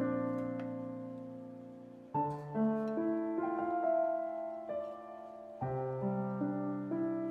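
Slow, soft solo piano background music: sustained chords struck about every three seconds, each ringing and fading away.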